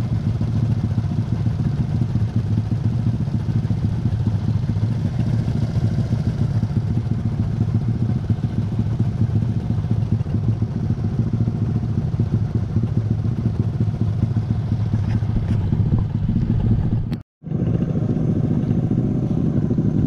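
Small motorcycle engine idling steadily close by, with one brief sudden dropout about three-quarters of the way through.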